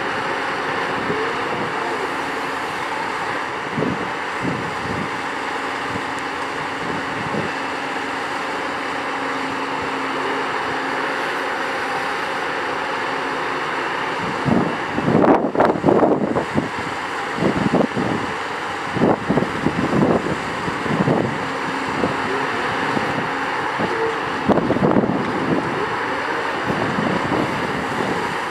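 Doosan DX 235LC-5 crawler excavator's DL06P diesel engine running steadily with a constant hum. From about halfway in, a run of irregular knocks and clanks comes and goes over the engine sound as the machine swings and moves off on its tracks.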